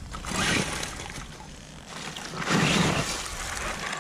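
RC short course truck fitted with tyre chains driving through muddy puddles, splashing in two loud bursts, about a second in and again after two and a half seconds.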